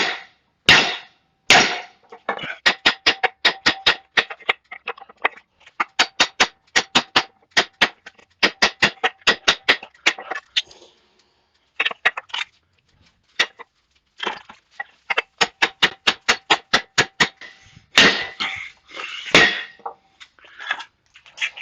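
Hand hammer blows driving a steel drift into the eye of a hot hammerhead, stretching the eye larger. A few spaced heavy blows, then quick runs of lighter, ringing strikes about four or five a second with short pauses between runs, and two heavy blows near the end.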